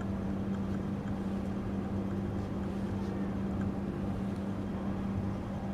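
Steady low mechanical hum with a constant tone, with a few faint ticks over it.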